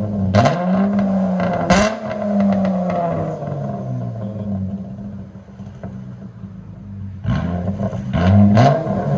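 2015 Chrysler 300S 3.6-litre V6 through straight pipes with J-pipes and muffler and resonator deletes, being revved: a quick rev held high for about two seconds with a couple of sharp cracks, easing down to idle around five seconds in, then sharp blips of the throttle near the end.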